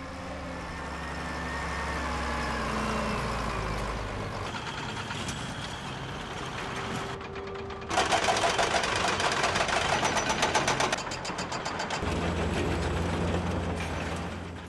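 Heavy machinery runs steadily, then a hydraulic rock breaker on an excavator starts hammering into rock in a rapid, loud rhythm for about three seconds. After that comes a lower, steady construction-site rumble.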